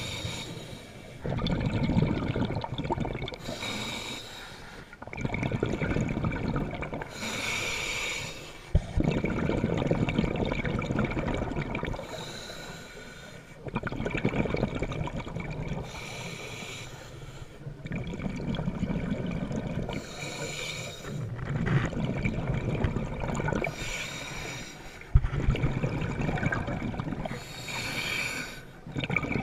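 A scuba diver breathing through a regulator underwater. A short hissing inhale is followed by a longer rush of bubbling exhaust, in a steady cycle about every four seconds.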